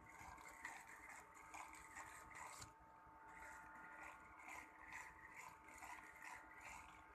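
Shimano Vanquish 4000XG spinning reel being cranked, with a faint grinding that comes round about twice a second with the handle turns: the gears meshing abnormally in a brand-new reel.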